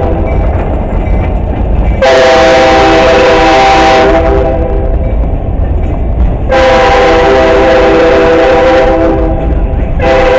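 Freight train's lead locomotive, an EMD SD80MAC, blowing its multi-note horn in long blasts, three times (about two seconds in, past the middle, and again near the end), over the low rumble and wheel clatter of loaded freight cars rolling past on street-running track.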